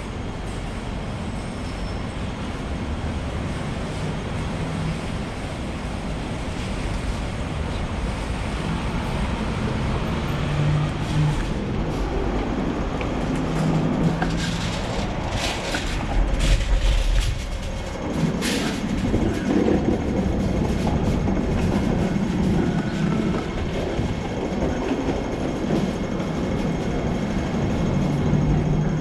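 Hong Kong double-decker trams running close past, steel wheels rumbling on the street rails, with a run of sharp clicks and clatter about halfway through, the loudest part.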